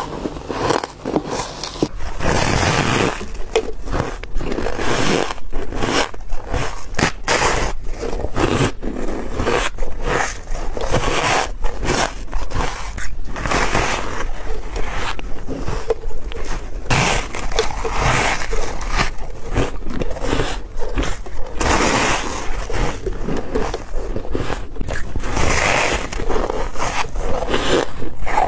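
Close-up biting and chewing of soft freezer frost and snowy ice, squeaky bites one after another with barely a pause between them.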